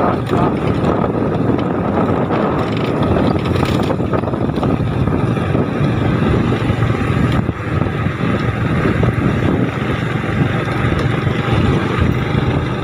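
Motorcycle riding along at a steady speed: its engine running under wind rushing over the microphone.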